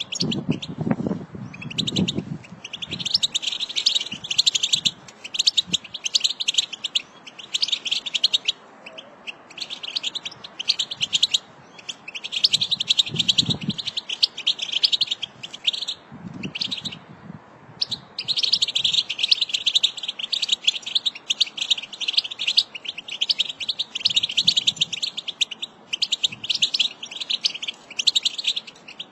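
American goldfinch song: long runs of rapid, high twittering and warbling, broken by a few short pauses.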